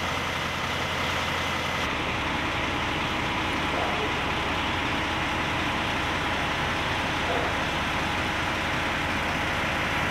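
Heavy diesel truck engines running steadily as a crane-and-rigging tractor-trailer passes close by.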